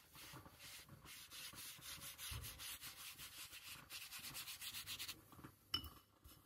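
Bristles of a large watercolour mop brush scrubbing a wash across heavy mixed media paper in quick back-and-forth strokes, several a second, stopping about five seconds in, followed by a single click.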